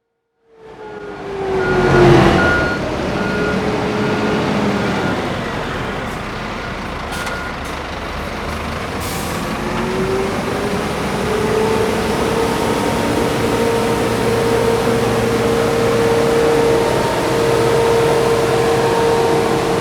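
Road sweeper truck running, with a steady rushing noise and hum. A loud burst of hiss comes about two seconds in, and short evenly spaced beeps sound for the first seven seconds or so. From about ten seconds in, a whine rises and then holds at a steady pitch.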